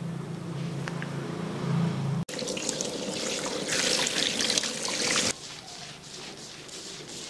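Water from a handheld salon shower head spraying onto hair and into a shampoo basin, starting suddenly about two seconds in and cutting off just after five seconds. Before it there is a steady low hum, and after it softer sounds of hands working through wet hair.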